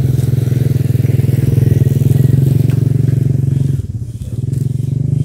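A small engine running steadily with a low, pulsing drone that dips briefly about four seconds in, then picks up again.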